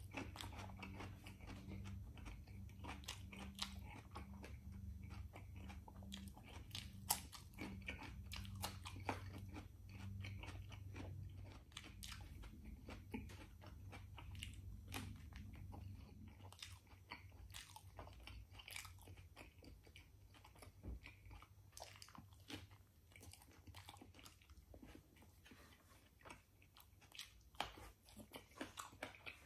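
Close mouth sounds of a person eating: crunchy bites into a raw cucumber spear, then chewing pita bread with chicken, with many small wet clicks and smacks. A low steady hum underneath stops about halfway through.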